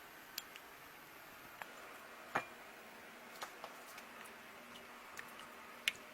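About ten light clicks and ticks at irregular intervals, over a faint steady background. Two of them, about two and a half seconds in and near the end, are sharper than the rest.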